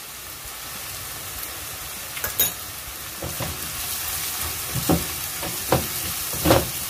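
Tempe stir-frying in sweet soy sauce in a nonstick wok: a steady sizzle, with the plastic spatula scraping and knocking against the pan several times in the second half as the tempe is turned.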